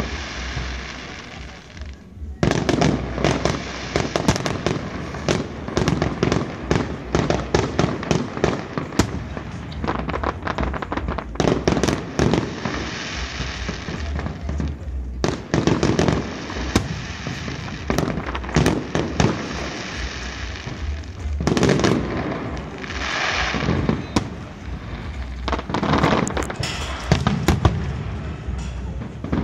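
Aerial fireworks display: shells bursting one after another in quick succession, many sharp bangs and crackles overlapping, with a short lull about two seconds in.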